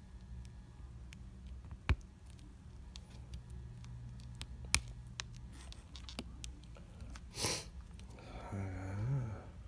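Small sharp clicks and taps of repair tools on an iPad mini 2's glass and frame as the glued digitizer is cut and pried loose, with a brief scraping rush about seven and a half seconds in and a short rising tone near the end.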